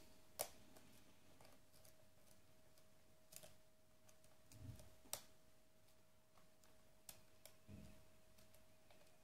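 Faint, scattered clicks of a lock pick working the pins inside a pin-tumbler cylinder lock, the sharpest about half a second in, with a couple of soft low thuds from handling, over a faint steady hum.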